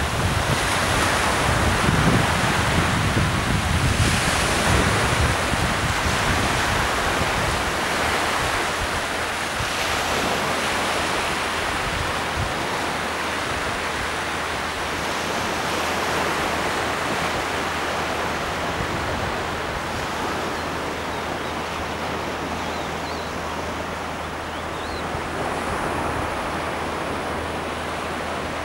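Small waves washing onto a sandy shore in a steady wash, with wind buffeting the microphone, heaviest in the first several seconds.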